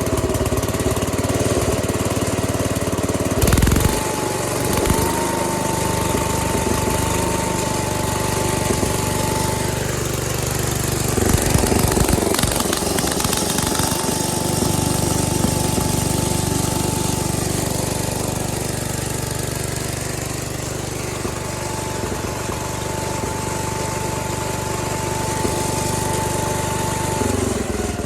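Gravely tractor engine running steadily with its Deluxe snowblower attachment engaged. A steady high whine from the spinning blower comes in about four seconds in and falls away in pitch near the end as the blower winds down.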